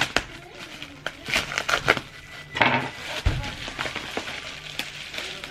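Plastic packaging and bubble wrap rustling and crinkling as a parcel is unpacked, with scattered sharp clicks and a dull thump about three seconds in.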